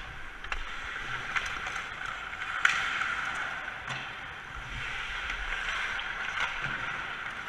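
Ice hockey skates scraping and carving across the ice, with a few sharp clacks of sticks and pucks.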